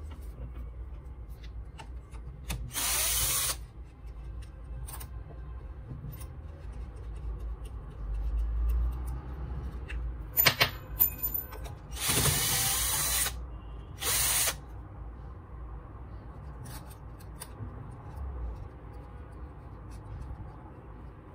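Three short bursts of a loud hissing power tool, each about a second or less: one a few seconds in and two in the middle. Between them, handling knocks and clicks on the burned angle grinder's housing.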